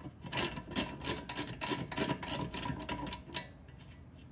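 Ratchet wrench clicking in quick strokes, about five clicks a second, as a threaded part is backed off after the ball joint has been split; the clicking stops about three and a half seconds in.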